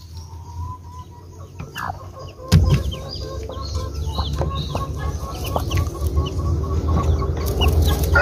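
Newly hatched Rhode Island Red chicks peeping in short repeated calls, with a mother hen clucking softly. About two and a half seconds in there is a sudden knock, followed by a low rumble of handling noise.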